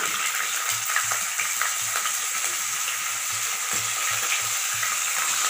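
Cubed raw potato sizzling as it goes into hot oil and ghee over a tempering of cumin seeds and green chillies in a nonstick kadai: a steady frying hiss with faint crackles.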